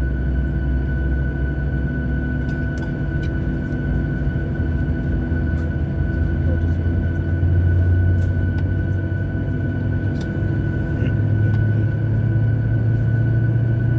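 Boeing 737-700's CFM56-7B turbofan engine spooling up during engine start, heard inside the cabin: a low rumble that rises in pitch over the seconds, over a steady high whine.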